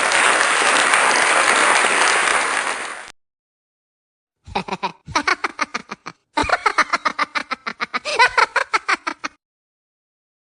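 Applause that cuts off about three seconds in. After a short silence come two runs of rapid, pulsing laughter, a quick string of 'ha' sounds each time, used as comedy sound-effect clips.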